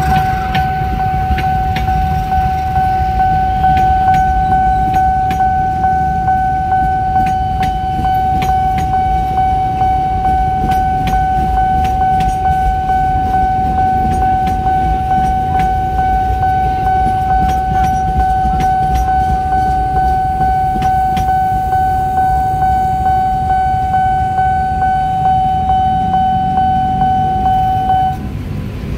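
Railway level-crossing warning alarm sounding one steady high tone over the low rumble of a passenger train passing, with wheels clicking over the rail joints. The alarm cuts off suddenly near the end as the crossing clears.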